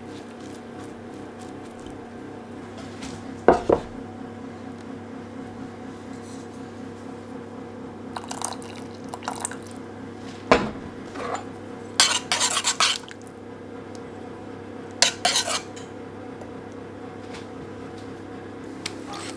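Kitchen utensils clinking against a stainless steel bowl and saucepan: a few sharp clinks and short quick runs of tapping, over a steady low hum.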